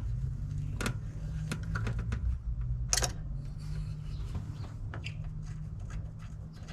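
Ratchet clicking and metal tools clinking while a thermostat housing bolt is worked loose, in irregular sharp clicks with one louder knock about three seconds in, over a low rumble.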